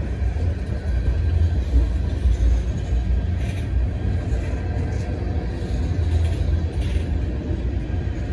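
Freight train rolling past: a steady low rumble of cars on the rails, with a couple of faint higher clanks.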